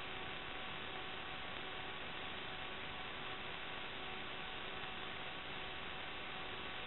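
Steady electronic hiss with a faint constant hum, the empty audio track of an analog FPV video DVR recording; no motor sound comes through.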